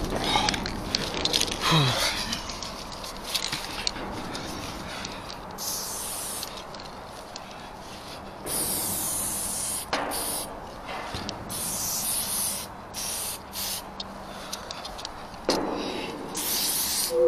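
Aerosol spray paint can hissing in a series of short bursts, each from half a second to about a second and a half long, as lines are sprayed onto a freight car.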